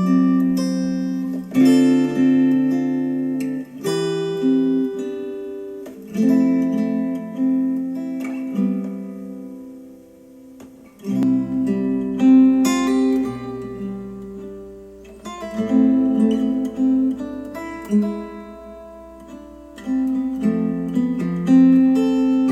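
Acoustic guitar music, picked and strummed chords, played back through KEF LS50 Meta bookshelf speakers. A low bass layer comes in about halfway through.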